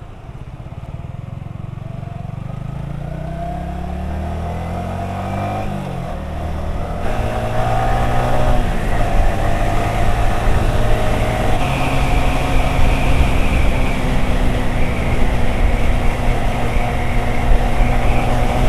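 Yamaha R15 V3's 155 cc single-cylinder engine accelerating, its note rising steadily for about six seconds, dropping at a gear change, then running at a steady high pitch under loud wind rush.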